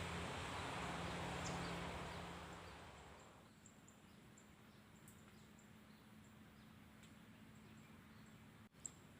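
Outdoor ambience: a rushing noise with a low hum fades away over the first three seconds. After it come faint, short, high chirps repeating, and one sharp click near the end.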